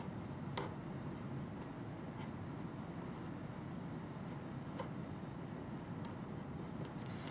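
Felt-tip pen drawing on paper: faint scratching strokes and a few light taps as the tip touches down, over a steady low background hum.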